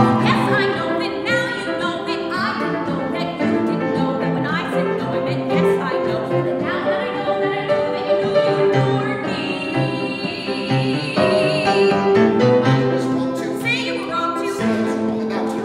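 A woman and a man singing a musical-theatre number with piano accompaniment, in turn and together, with one long held note with vibrato about ten seconds in.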